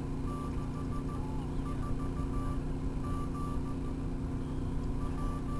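Morse code beacon from the weather balloon payload's 70 cm transmitter, received on a radio: a single high beep keyed on and off in dots and dashes. Under it runs a steady low hum.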